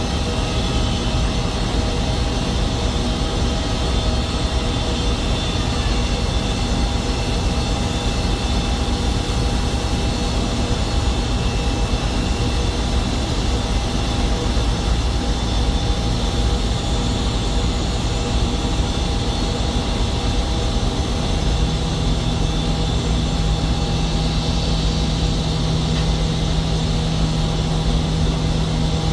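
Aircraft engines running steadily: a continuous low rumble with several steady whining tones over it. A deeper steady hum joins about two-thirds of the way through.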